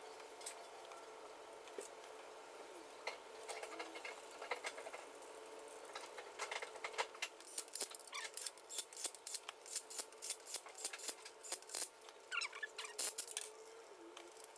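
Light, scattered metallic clicks and clinks, busier in the second half, from the main bearing caps and their bolts being fitted over the crankshaft of a Jaguar E-Type engine block, the bolts run in with a cordless driver.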